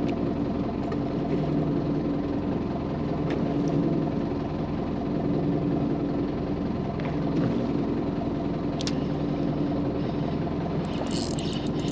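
Fishing boat's engine idling with a steady, even hum. A brief crackling rustle comes in near the end.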